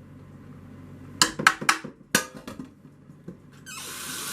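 A quick run of sharp clinks and knocks of kitchenware, then a steady hiss that starts suddenly near the end.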